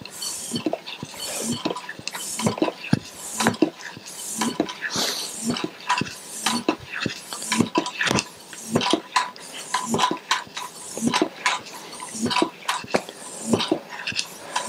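Topeak Joe Blow floor pump worked in quick, even strokes, about two a second, each with a hiss of air and a light clack, inflating a bicycle tyre's inner tube.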